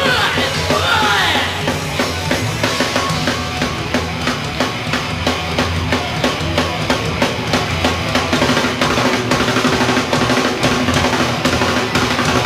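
Live rock band playing loudly: a drum kit hammers out rapid, closely spaced hits over steady bass and guitar. In the first second or so there are sliding, squealing pitches.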